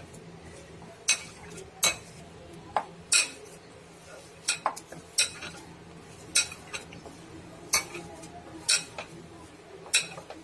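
A glass mixing bowl clinking as desiccated coconut is mixed in it by hand: about a dozen sharp, irregular knocks of a bangle or ring against the glass.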